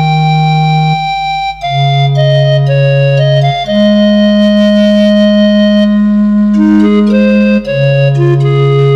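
Background music: slow, sustained keyboard chords held over a low bass note that shifts to a new pitch every few seconds.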